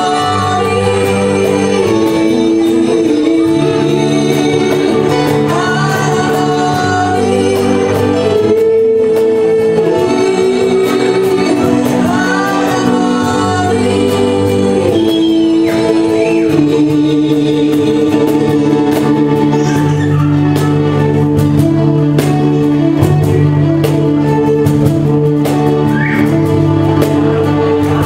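Live acoustic pop performance: a male and a female singer singing together through microphones over acoustic guitar, with a steady low bass part underneath.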